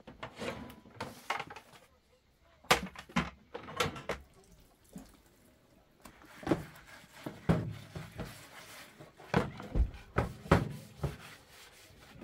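Irregular knocks and thumps, about a dozen sharp hits in uneven clusters.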